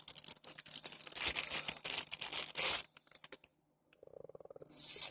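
Plastic packaging crinkling and rustling as it is handled, a dense crackle for about three seconds. Then come a few light clicks and another short burst of rustling near the end.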